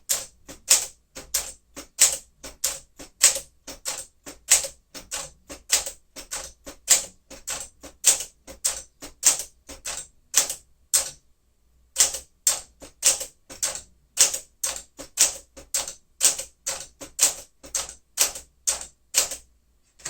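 1959 Smith-Corona Sterling manual typewriter being typed at a steady pace, each key stroke a sharp clack of the typebar striking the platen. There are about two to three strokes a second, with a brief pause about halfway through.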